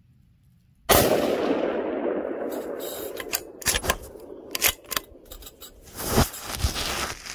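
A 6.5 Creedmoor pistol fired once about a second in: a loud crack that echoes and rolls away over a couple of seconds. A run of sharp clicks and knocks follows.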